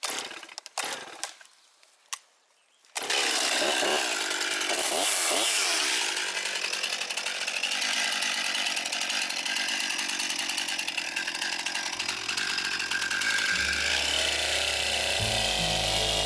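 Stihl MS261 two-stroke chainsaw running loud and steady, cutting into a small yard tree. It starts about three seconds in, after a few short knocks.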